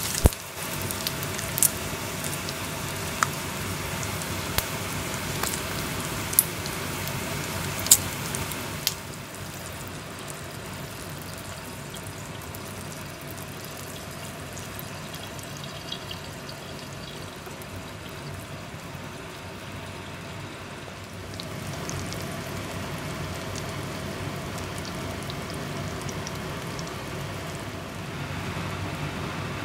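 Bacon frying in a pan, a steady sizzle with sharp spits and pops of hot fat over the first nine seconds or so. Then a quieter, steady sizzle as beaten eggs cook into omelets in the hot pan, getting a little louder near the end.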